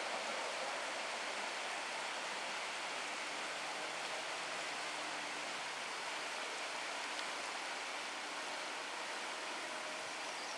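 River rapids rushing over rocks: a steady, even rush of water.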